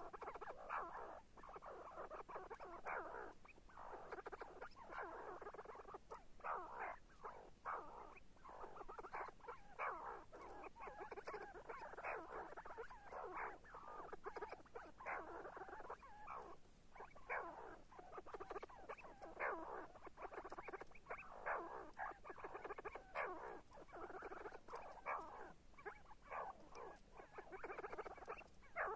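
See-see partridge calling: a continuous run of short, rapid notes, repeated one after another with only brief pauses.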